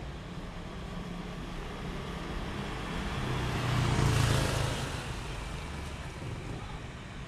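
Street traffic: a vehicle passes close by, its engine and road noise swelling to a peak about four seconds in and then fading, over a steady low engine rumble.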